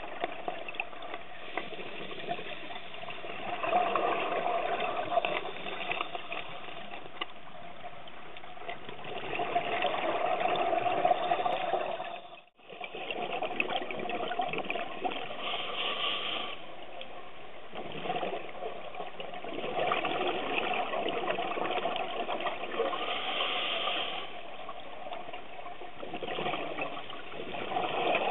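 Underwater sound of scuba divers breathing through regulators: a steady muffled rush, with the bubbling of exhalations swelling every few seconds. It cuts out briefly about twelve seconds in.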